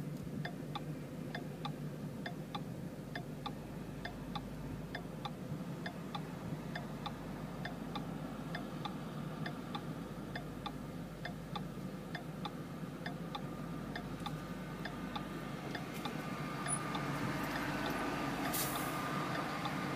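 Turn-signal indicator clicking evenly, a little over two clicks a second, over the low idle of a 2014 Mustang GT's 5.0 L V8 with Roush axle-back mufflers, heard from inside the cabin. The noise grows louder in the last few seconds.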